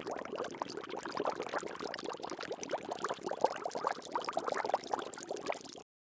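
Water bubbling steadily: a dense stream of small bubbles popping and burbling. It cuts off abruptly near the end.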